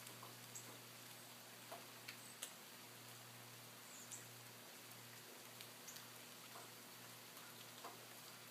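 Near silence outdoors during a snowfall: a faint even hiss with scattered light ticks of snow landing on leaves, and a few faint high squeaks.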